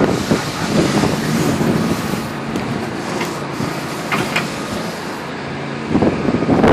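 Pressure washer unit running and spraying high-pressure water onto concrete: a steady motor drone under the hiss of the spray, growing louder near the end.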